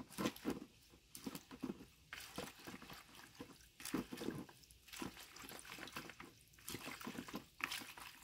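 Thin stream of tap water running into a plastic bowl of arugula while hands swish and rub the leaves, giving irregular splashes and wet rustling.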